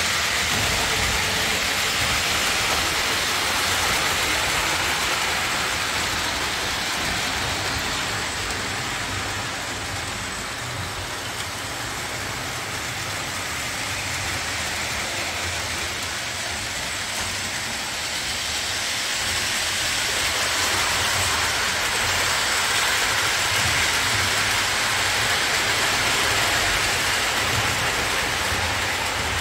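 Lionel O-27 model trains running on tubular three-rail track: a steady rumble and hiss of wheels and motors that fades somewhat in the middle and swells louder again as a train passes near.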